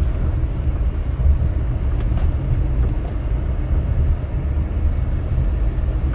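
Car driving along a road, a steady low rumble of engine and road noise heard from inside the cabin.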